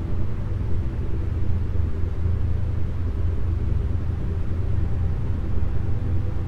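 Electronic meditation soundtrack of isochronic tones mixed with ambient sound: a steady low rumble with faint sustained chord tones above it.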